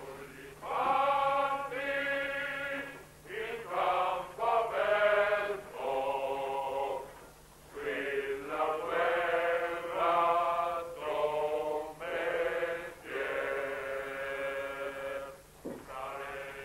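Men singing a slow song together, in long held notes phrase by phrase with short breaks between.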